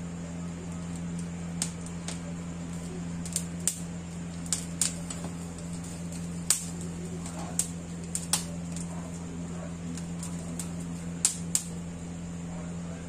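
Corn kernels on a husked cob popping and crackling over a gas burner flame as they char: about a dozen sharp, irregular snaps over a steady low hum.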